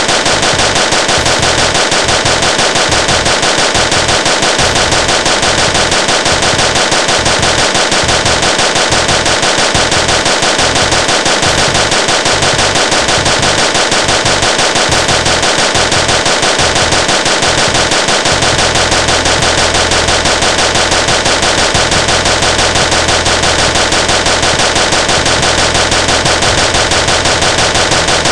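Machine gun firing continuously in one long unbroken burst of rapid shots.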